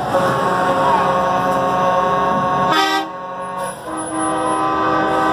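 Semi-truck air horns blowing as the trucks pass: a long held blast that stops a little under three seconds in, a short blast right after, then another long blast about a second later, over the low rumble of the passing trucks.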